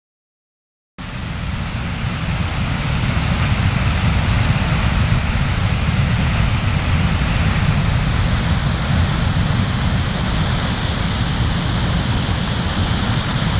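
Fast-flowing floodwater of the swollen Nith River rushing over its banks, a steady loud wash of noise under a low, uneven rumble of wind on the microphone. It starts abruptly about a second in.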